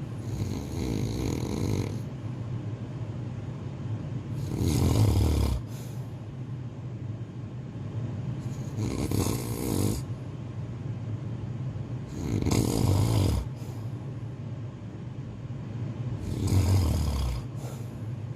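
Snoring, slow and regular, one breath about every four seconds; the loudest snores come with a low rumble, and the others are airier. A steady low hum sits underneath.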